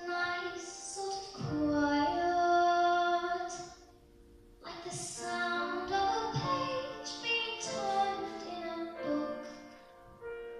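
A solo singer performing with piano accompaniment. Two sung phrases, with a short pause about four seconds in.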